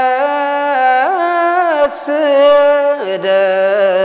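A solo male voice chanting a Ge'ez psalm verse in Ethiopian Orthodox style, holding one long melismatic syllable. The pitch steps up about a second in, falls back, and drops lower about three seconds in, with small wavering ornaments on the held notes.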